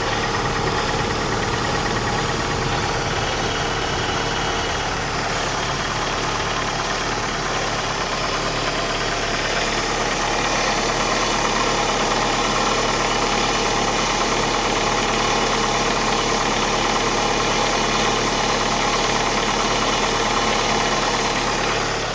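Opel Astra 1.6 16v Ecotec inline-four engine running steadily at idle, with the strange noise the owner is recording. It grows slightly louder about ten seconds in.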